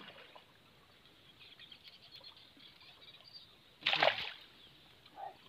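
Faint bird chirps over quiet pond ambience, then a single short, loud splash of water about four seconds in.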